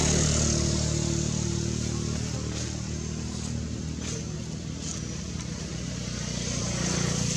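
A motor vehicle's engine running with a steady low hum, swelling louder at the start and again near the end. A few faint short high ticks come in the middle.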